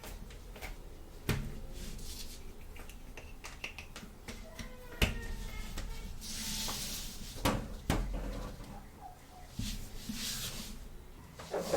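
Small plastic toy playset pieces handled and set down: a string of light clicks and taps, with a short rustle about six seconds in.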